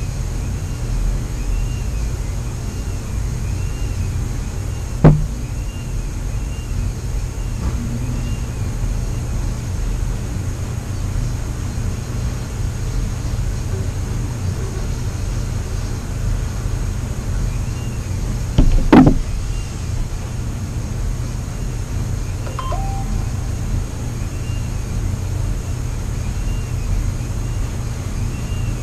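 Steady low hum with a faint chirp repeating about once a second, broken by two sharp knocks, one about five seconds in and a louder one near nineteen seconds.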